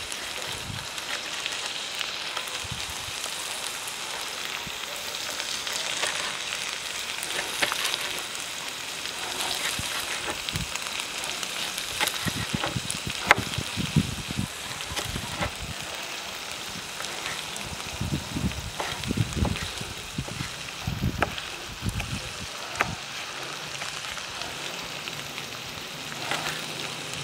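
Meat frying in hot oil in a pot, with a steady sizzle. Over it, a chef's knife taps irregularly on a plastic cutting board as tomatoes are diced, with a run of heavier knocks past the middle.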